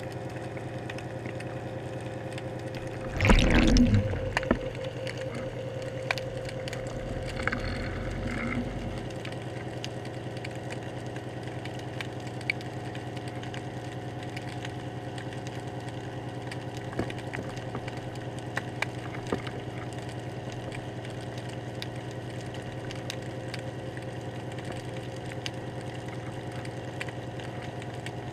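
Underwater sound picked up through a GoPro's waterproof housing on a hanging fishing rig: a steady low hum with faint ticks. A loud knock and rustle comes about three seconds in, and a smaller low rumble comes a few seconds later.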